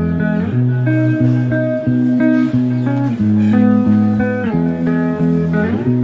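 Background music: a guitar tune.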